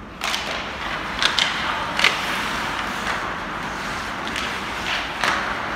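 Ice hockey play: a steady scraping hiss of skates on the ice that starts suddenly just after the beginning, with several sharp clacks of sticks and puck scattered through it.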